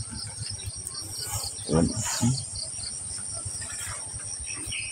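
Insects chirping in a steady pulsing rhythm, about four or five chirps a second, over a second, continuous high trill. Two brief, louder low sounds come about two seconds in.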